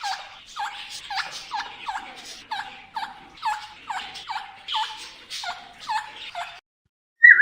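Indian ringneck parrot calling a rapid series of short, falling calls, about two a second, that cut off suddenly after about six and a half seconds. Near the end comes a single louder, higher call.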